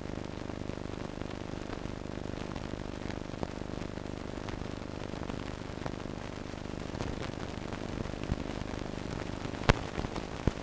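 Steady hiss and low hum of an old film soundtrack carrying no programme sound, with a couple of sharp crackles near the end.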